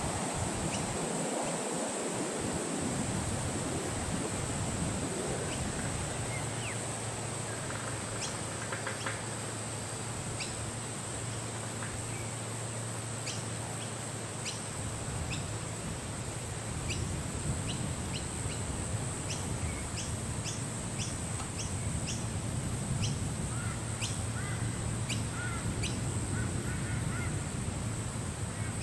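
Wind blowing steadily, with birds giving many short, sharp calls through most of it, and a steady high-pitched drone underneath.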